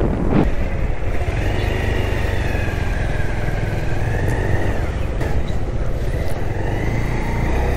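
Motorcycle running steadily at road speed while being ridden: a continuous low engine and road rumble, with a faint high whine that slowly rises and falls.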